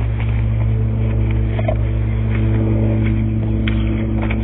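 A steady low mechanical hum, with a few faint ticks over it.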